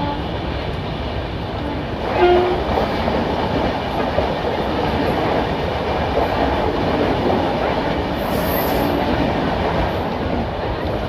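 Train running along the track: a steady, loud rumble of wheels and coaches. A short pitched tone sounds about two seconds in, and a brief high hiss a little past the middle.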